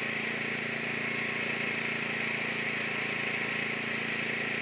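Off-road 4x4 engine running steadily with an even, unchanging hum.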